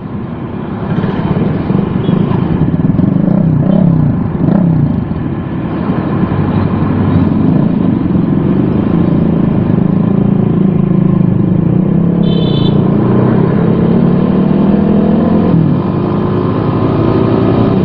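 Motorcycle engine running while riding in traffic, its pitch rising and falling with the throttle and gear changes, under wind and road noise. A short high beep sounds about twelve seconds in.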